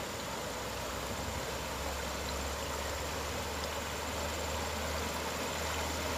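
Fast river current rushing as a steady wash of water where it pours into a bamboo river fish trap, growing slightly louder toward the end.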